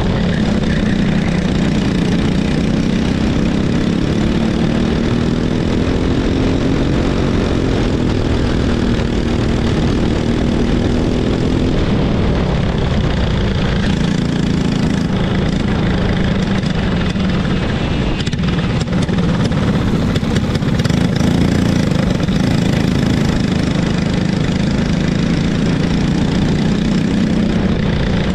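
Racing kart engine running at speed, heard from on board the kart, its pitch rising and falling as the throttle is worked.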